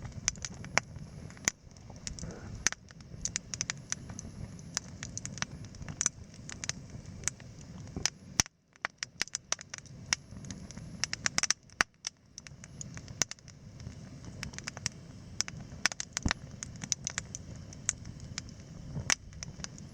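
Wood campfire crackling and popping: many irregular sharp snaps over a low steady rumble of the burning fire.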